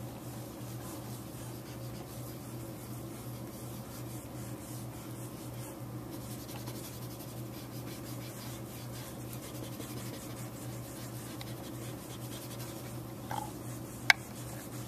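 A white eraser rubbing over compressed charcoal on drawing paper, erasing away highlights, over a steady low hum. A single sharp click sounds just before the end.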